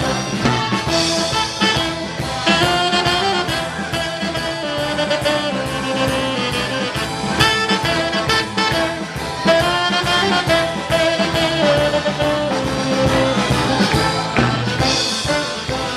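Live party band playing an up-tempo song with a steady beat.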